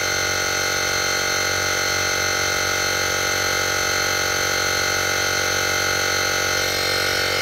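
Portable digital air compressor (model JM-8817) running steadily as it pumps up a tire, a constant buzzing hum from its small motor-driven pump. Its pitch rises slightly near the end.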